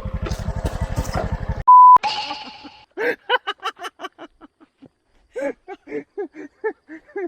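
A motor scooter's engine idling, with its quick steady pulse, is cut off about a second and a half in by a loud, short censor beep at a single pitch. About a second later a run of short voice sounds follows, about four a second.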